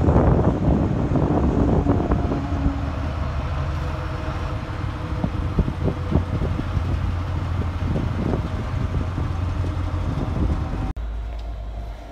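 Colas Rail Freight diesel locomotives passing slowly, their engines running with a steady low drone and occasional knocks from the wheels on the track. The sound is loudest at first and eases as they pass; it drops abruptly about eleven seconds in, to a quieter rumble.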